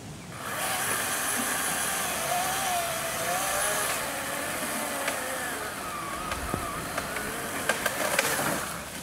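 Chainsaw running and cutting into a log, its engine pitch wavering up and down under load. There are a few sharp clicks near the end, and then the sound drops away.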